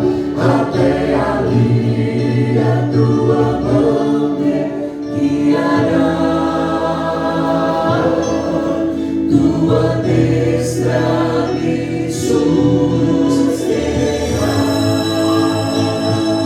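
A small group of voices singing together in harmony.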